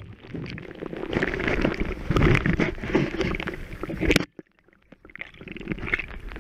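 Water sloshing against a camera held just under the lake's surface as a striped bass is released by hand: a muffled, churning noise that drops out briefly about four seconds in.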